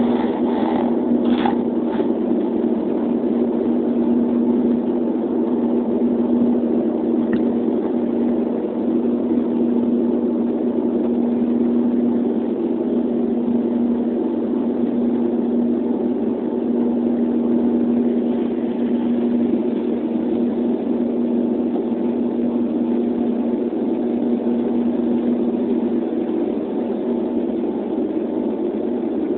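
Cabin noise of a Dash 8 twin turboprop at takeoff and climb power: a steady propeller drone with a strong steady hum. There are a few short knocks in the first two seconds while the wheels are still on the runway, and the hum fades near the end.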